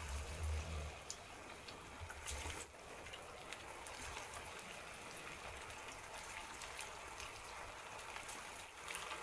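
Masala-battered anchovies deep-frying in hot oil on a high flame: a steady low sizzle with scattered small pops and crackles.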